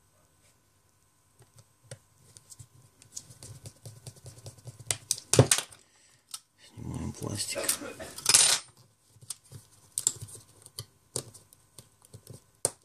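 Small clicks and metallic ticks of tweezers, tiny screws and parts being handled on an opened iPhone 4S, with a sharp click about five seconds in and a scraping rustle a little later.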